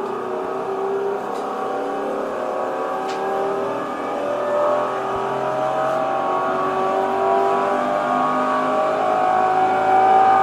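Tokyo Metro 07 series electric train running, its VVVF inverter and traction motors giving a whine of several tones that climb slowly in pitch as the train accelerates.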